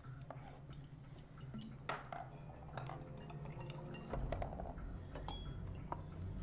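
Glass decanters and tumblers clinking and knocking as they are handled on a table: a scatter of sharp chinks, some ringing briefly.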